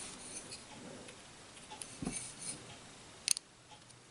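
Small light scrapes and clicks from a screwdriver tip working at the tiny rotor and stator of a quartz clock movement's stepper motor, with a low knock about two seconds in and one sharp click, the loudest sound, just past three seconds in.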